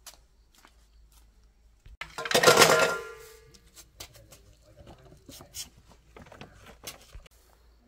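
Wood planer parts dropped into a stainless steel bowl about two seconds in: a loud metal clatter, the bowl ringing and dying away over about a second, then a few light clicks and rattles as the parts settle.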